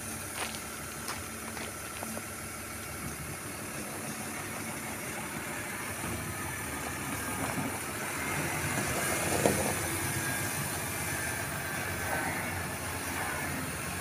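Diesel engine of a six-wheel tipper truck running as the truck drives and turns on a gravel yard, growing louder toward the middle, with a single sharp knock about nine and a half seconds in.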